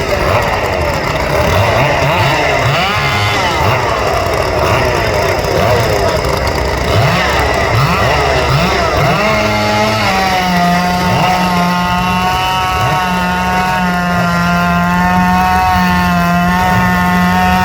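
Racing hot saw two-stroke chainsaw engines revving up and down, several pitches overlapping. About ten seconds in, one saw settles into a steady high-revving run that holds to the end.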